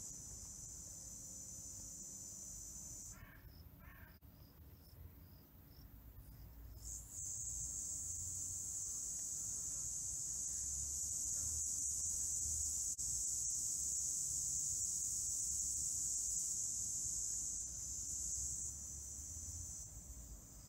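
A steady high-pitched buzzing hiss, like an insect chorus, which drops away for a few seconds early on and comes back louder at about seven seconds in.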